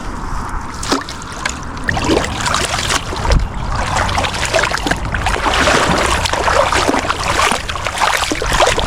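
Water splashing and sloshing, with many small quick splashes that grow busier from about two seconds in.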